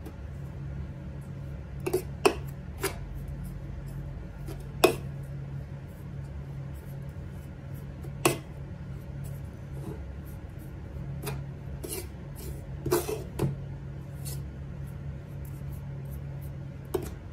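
Metal spoon stirring dry flour in a steel pot: a soft scraping with irregular sharp clinks where the spoon knocks against the pot's sides, over a steady low hum.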